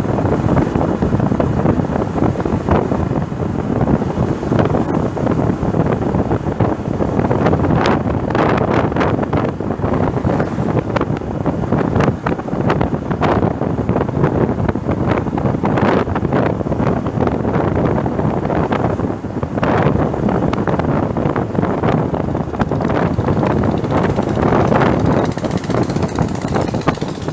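Wind buffeting the microphone of a camera on a moving motorcycle, a loud rushing roar that gusts unevenly, with road and engine noise blended underneath.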